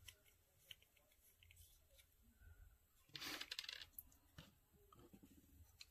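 Faint handling of small baitcasting-reel parts: light clicks, with a short burst of clicking and scraping about three seconds in as the zero adjust knob is worked off the side plate.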